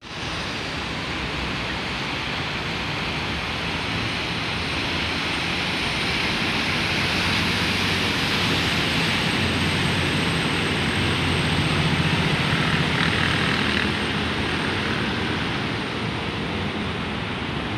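Khlong Saen Saep express boat passing close by: its diesel engine drone and the rush of its wake on the canal water. It grows louder to a peak about twelve seconds in, then fades.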